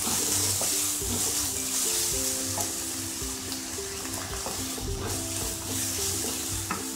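Chopped onions frying in hot oil in a kadhai, sizzling as a wooden spatula stirs and scrapes them round the pan, with light clicks of the spatula against the pan. Background music plays underneath.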